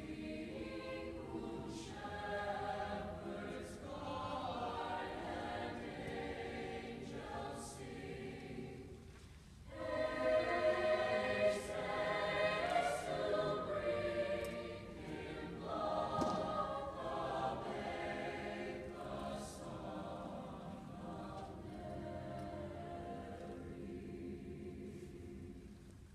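Mixed choir of men and women singing sustained chords. About nine seconds in there is a brief breath pause, after which the choir comes back louder, then gradually grows softer toward the end.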